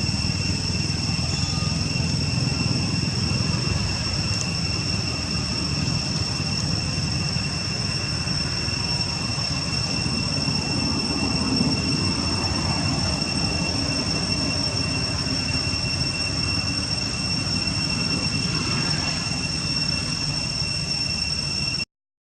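Steady low rumbling background noise with a continuous high-pitched whine held over it, cutting out briefly right at the end.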